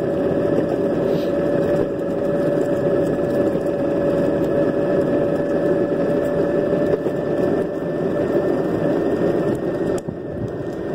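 Electric longboard running at a steady cruise: the motor whines at one constant pitch over the rumble of the wheels rolling on asphalt, easing off slightly near the end.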